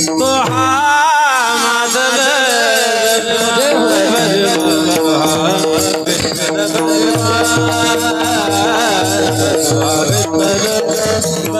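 Marathi devotional abhang: a male voice sings a long, wavering melismatic line over a steady drone, with regular low hand-drum strokes.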